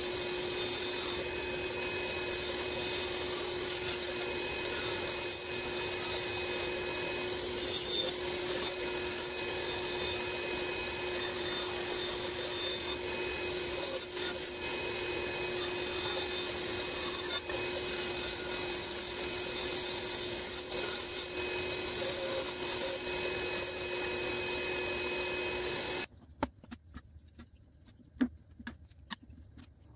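Bandsaw running with a steady hum while its blade cuts through a wooden board. About 26 seconds in it gives way suddenly to quiet, with a few light clicks and taps as packing tape is cut with scissors and handled.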